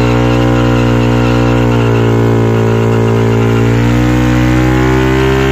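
Yamaha R15 V3's single-cylinder engine held at high revs during a burnout, the rear tyre spinning in place and smoking. The revs sag a little about two seconds in and climb back up near the end.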